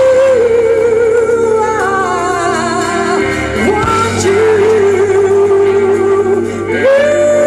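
Live band music: a woman sings long held notes with a wide vibrato over electric guitars, bass, keyboard and drums. Her voice swoops up into a new note about halfway through and jumps higher near the end.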